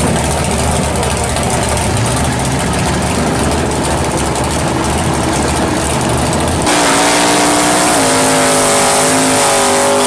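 Drag-racing Chevrolet Camaro's engine idling loudly, then, about two-thirds of the way in, suddenly revving up and holding high revs as the rear tyres spin in a burnout.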